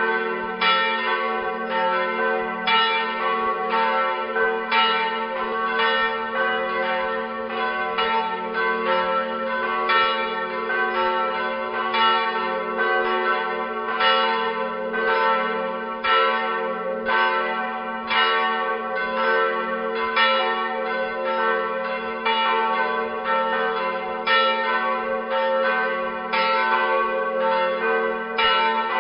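Church bells of a Protestant church pealing together. The strikes overlap in an uneven pattern about twice a second over a steady ringing hum.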